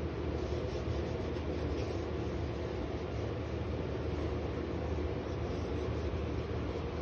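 Hands rubbing the back of a sheet of paper pressed onto an inked lino block, a soft brushing of skin on paper, over a steady low hum.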